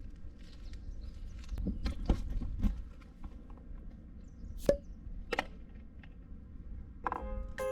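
A few scattered knocks and taps over a low rumble. A chiming music jingle starts near the end.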